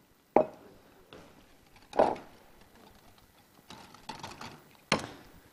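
A few separate knocks and clinks of kitchen utensils and bowls being handled on a counter, with quiet gaps between them.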